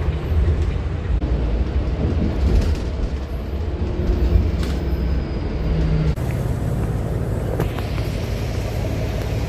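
City bus running, heard from inside the cabin: a steady low engine rumble with road noise.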